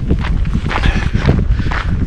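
Wind buffeting the microphone, with the irregular steps and rustle of a hiker walking.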